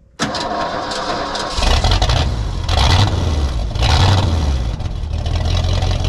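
Old flatbed pickup truck's engine cranking, catching about a second and a half in, then running with a few swells of throttle.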